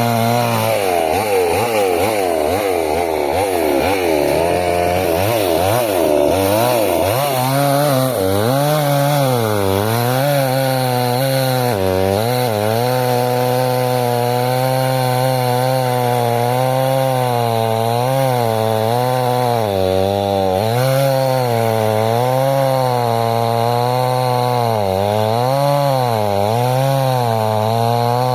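Chainsaw running at high revs while cutting a large log, its pitch dipping and rising over and over as the chain bites into the wood and frees up.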